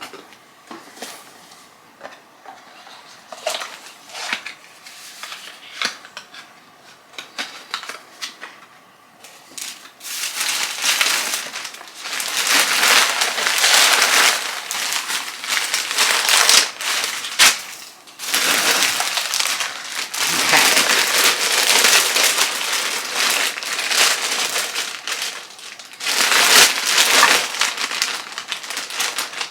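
Product packaging being handled and opened: light rustles and clicks at first, then from about ten seconds in, loud, continuous crinkling and crumpling of wrapping.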